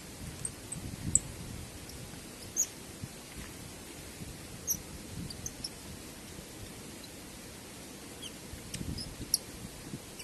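Steady noise of a waterfall with gusts of wind buffeting the microphone, and short high bird chirps scattered throughout.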